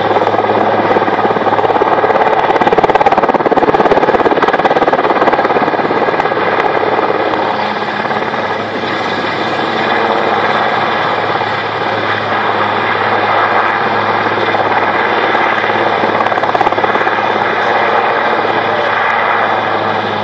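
Large twin-turbine military helicopter, a Super Puma type, passing low and slowly close by. Its rotor and turbines make a steady noise that is loudest a few seconds in and eases slightly after.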